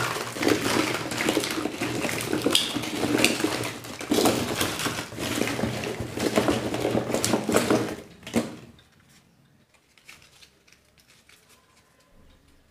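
A dense, rapid clatter and rattle with a low steady hum underneath, stopping abruptly about eight and a half seconds in; a few faint clicks follow.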